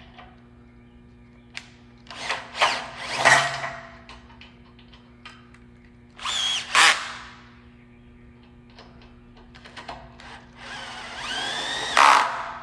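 Power drill/driver running in three short bursts, each spinning up and winding down, as it tightens the hinge fasteners into the door jamb.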